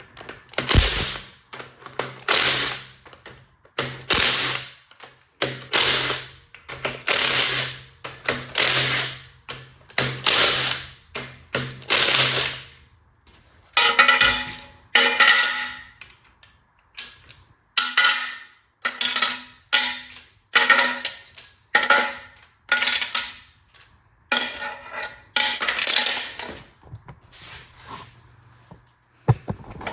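Power wrench spinning bolts off a Ford 5.0 V8's top end in a quick series of short runs, each under a second, one after another with brief pauses. The later runs have a whining pitch. A steady low hum runs under the first half and stops about halfway through.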